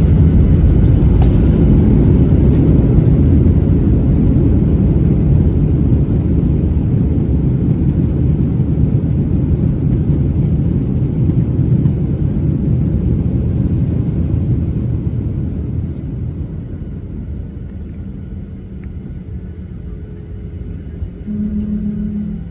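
Loud low rumble inside a Southwest Boeing 737 cabin during the landing roll after touchdown. It dies away gradually over the last several seconds as the jet slows, and a short steady hum comes in near the end.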